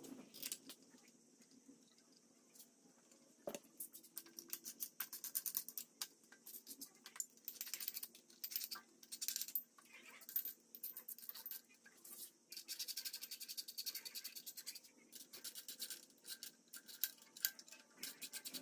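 Exhaust header bolts being run in with a ratcheting wrench: several bursts of rapid metallic clicking, with scattered clinks of steel on the engine's cylinder head and header flanges.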